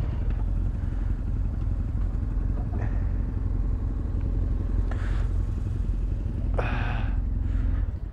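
Motorcycle engine running at idle and low speed with a steady low rumble, stopping right at the end as it is switched off.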